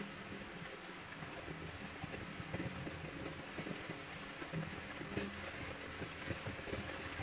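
Pencil strokes scratching across drawing paper: several short sketching strokes, one run of them about three seconds in and more near the end, over a low steady background rumble.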